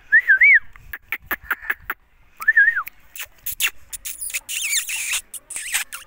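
Indian ringneck parakeet giving two short wavering whistles, one at the start and one about two and a half seconds in, among many sharp clicks, then a harsher, scratchy high chatter about four seconds in.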